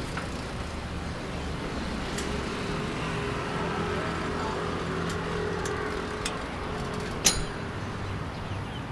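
Road traffic going by, with a motor vehicle's engine hum building and passing through the middle. A few light clicks are heard, then one sharp click about seven seconds in.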